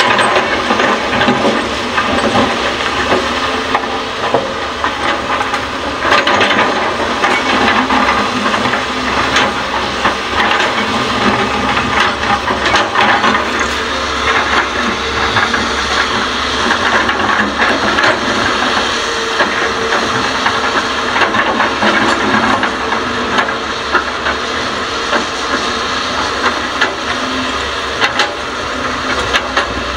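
Hyundai excavator working, loading fill soil into a dump truck: a steady machine noise with a hiss, broken by many short knocks and clatters.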